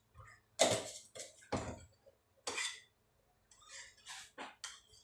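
Kitchen utensils and dishes knocking and clinking on a counter: several separate sharp clatters, then a quicker run of lighter clinks near the end.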